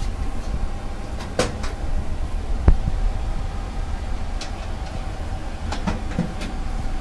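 Steady hum with a constant whine from the cooling fans of rack-mounted network equipment, with several clicks and knocks from the rack cabinet's door and latch being handled, the sharpest a little under three seconds in.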